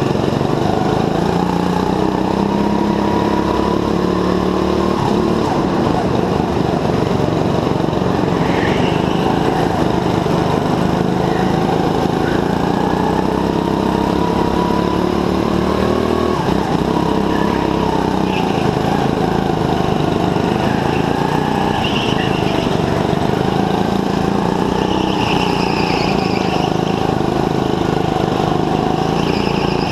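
Go-kart engine running hard around a track, its pitch rising and falling as the driver accelerates and lifts for corners, with a sudden drop in revs about 16 seconds in.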